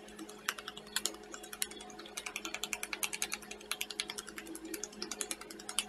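Hands rapidly patting a face still wet with sheet-mask essence: a quick run of light pats, several a second, picking up about half a second in.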